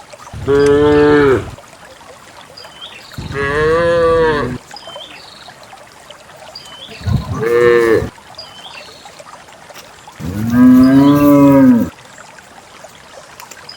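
Cows mooing: four long moos a few seconds apart, each lasting one to two seconds. Faint, repeated high chirps sound in the quiet between the calls.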